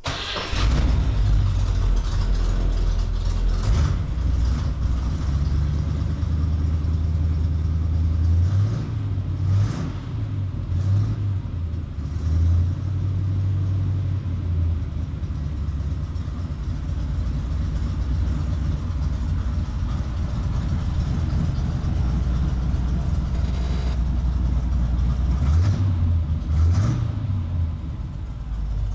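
1967 Camaro's 350 small-block V8 starting at once on the key and then running loud through temporary Thrush glass-pack mufflers on the exhaust manifolds. The engine speed rises briefly a few times, about a third of the way in and again near the end.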